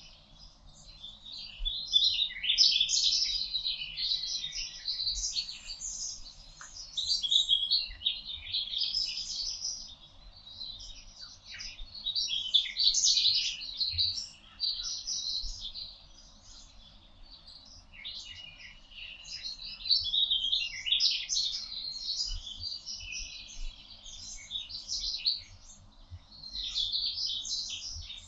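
A chorus of several songbirds singing at once in a forest, overlapping high chirping phrases that swell and ease off every few seconds.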